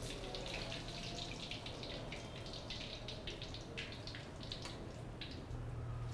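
Hot oil in a wok crackling faintly as deep-fried chicken pieces are ladled out, with scattered small pops and clicks over a steady low hum that grows a little louder near the end.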